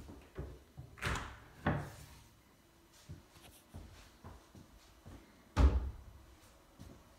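A wooden interior door being pushed open, with two short scraping swishes and then a loud thud about five and a half seconds in, amid small knocks.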